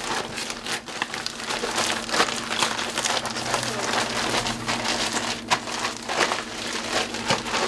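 Sealed zip-top plastic bag of crushed tortilla chips, ramen noodles and hot water being squeezed and kneaded by hand: steady crinkling of the plastic with dense little crunches and clicks.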